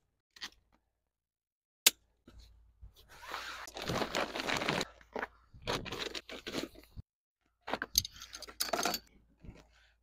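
Beach gear being loaded into a fabric wagon cart: rustling, scraping and knocking as bags, a cooler and other items are handled and set in, with a single sharp click about two seconds in.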